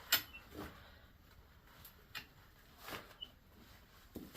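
Quiet, with a few faint, scattered clicks and knocks.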